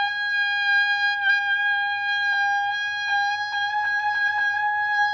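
Tenor saxophone holding one long, steady altissimo note, high above the horn's normal range, with a few brief flickers in the tone about three to four seconds in.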